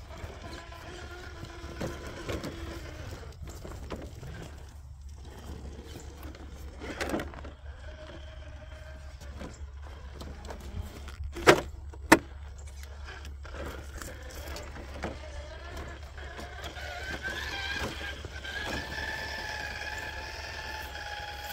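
Traxxas TRX-4 K10 RC crawler's electric motor and gear drivetrain whining as it crawls over concrete rubble, its pitch shifting with the throttle. About halfway through come two sharp knocks half a second apart. Near the end the whine rises and holds higher as the truck drives across grass.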